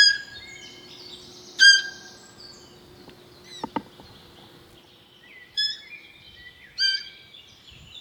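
Birds chirping: a few sharp, loud calls at irregular intervals over quieter high twittering, with two brief clicks a little past the middle.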